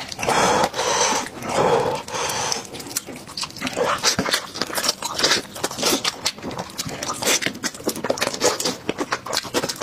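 Close-up eating mouth sounds: about four short, breathy slurps in the first couple of seconds, then rapid wet chewing smacks and clicks.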